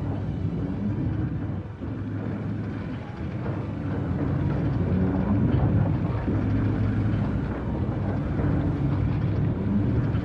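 A vehicle engine running with a steady low rumble, swelling a little midway.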